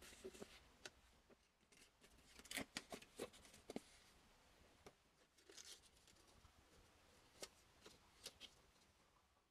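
Faint crinkling and rustling of a paper template with clear tape on it as it is handled and laid onto an axe head. A dense cluster of crisp crackles comes a couple of seconds in, and a few more come later.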